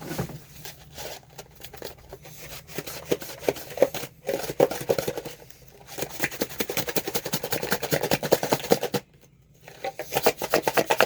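Garlic seasoning being shaken out of a shaker: runs of rapid rattling strokes, with short pauses about four, six and nine seconds in.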